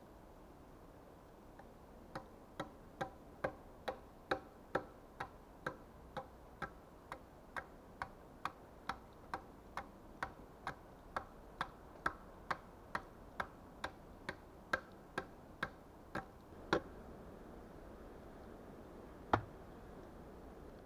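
A hand tool knocking on wood: a long, very regular run of sharp knocks, about two a second, then after a short pause a single louder knock near the end.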